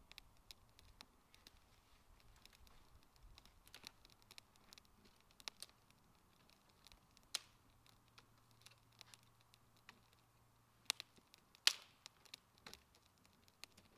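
Wood campfire crackling, with faint irregular pops and two louder snaps close together about three quarters of the way through.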